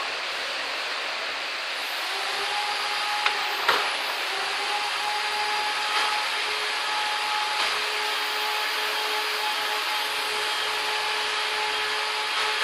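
Multi-head uPVC window welding machine running: a steady hiss, with a steady motor whine setting in about two seconds in and a few sharp clicks.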